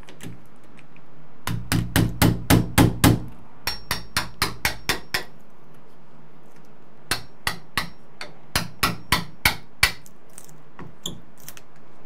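Hammer striking a chisel to mortise out the latch-plate recess in the wooden edge of a door. There are two runs of quick sharp taps, about four or five a second: the first starts about a second and a half in and eases to lighter taps, and the second follows about seven seconds in.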